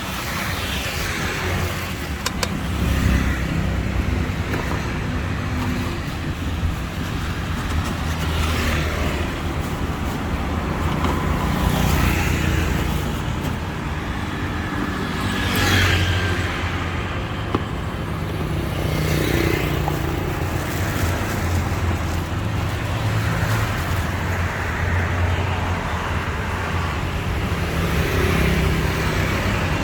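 Steady road traffic passing, with several vehicles growing louder as they go by.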